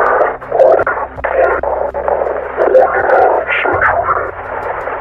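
A rough, distorted voice speaking in halting phrases, band-limited as if heard over a radio, with a steady low hum underneath.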